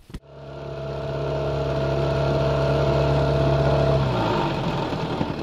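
Boat motor running at a steady pitch. About four seconds in the steady tone stops, leaving a lower, rougher running sound.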